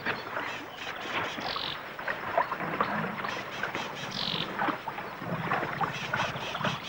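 Shallow muddy water splashing and sloshing as an elephant calf stirs it with its trunk and feet, with many small wet slaps and clicks.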